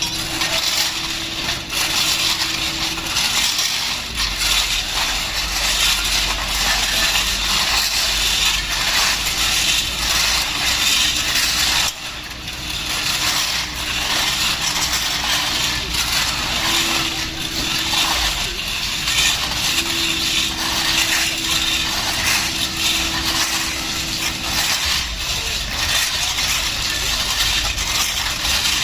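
Railway track construction site noise: continuous scraping and clinking of ballast and metal, with machinery engines running and a low steady engine hum coming in about four seconds in.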